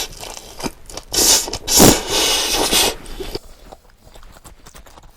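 Close-miked eating of braised pig's trotters (jokbal): wet chewing and mouth sounds, with a few loud noisy rushes between about one and three seconds in, then quieter chewing.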